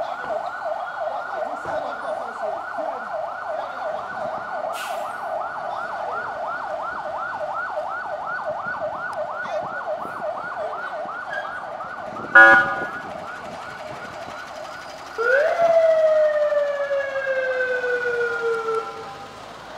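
Police vehicle siren on a fast yelp, about four sweeps a second. About twelve seconds in comes a brief, loud horn blast, then the siren switches to a wail that rises sharply and slowly falls before cutting off near the end.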